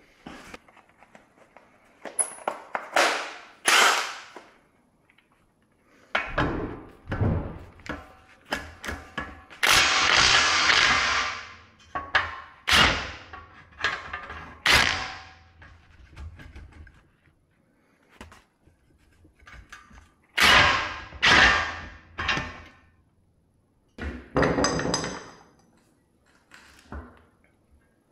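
Irregular knocks, thuds and metallic clatters of tools and parts being worked on a vehicle strip-down, in clusters with short pauses between them. About ten seconds in, a harsh noisy sound lasts about two seconds.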